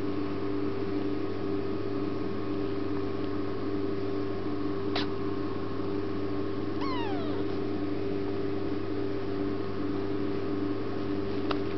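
A tiny kitten sneezing: two quick, sharp little sneezes, one about five seconds in and one near the end. Between them comes a short falling mew. A steady hum runs underneath throughout.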